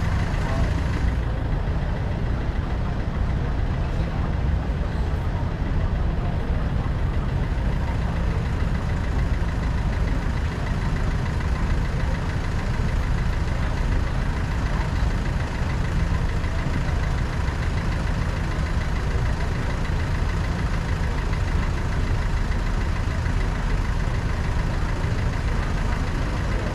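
Car engine and tyres on a wet road, a steady low rumble as the car creeps along in slow traffic.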